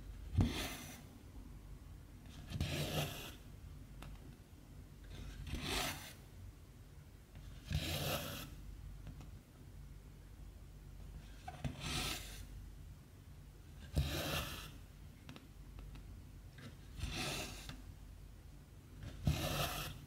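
Cotton embroidery thread drawn through 14-count cross stitch fabric: a short rasping pull about every two to three seconds, eight in all, several opening with a light tap.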